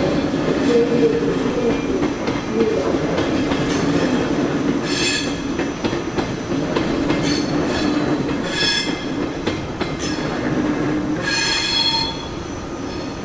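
A train pulling out with a steady rumble and motor hum, while its wheels give four short, high-pitched squeals on the rails. The sound drops off slightly near the end.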